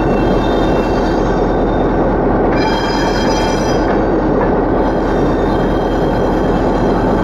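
EMD GR-12 diesel locomotive running along the track, heard close from its outside walkway: a steady loud mix of engine and wheel-on-rail noise. A high-pitched wheel squeal comes and goes three times, about a second long at the start, again around three seconds in, and from about five seconds in to the end.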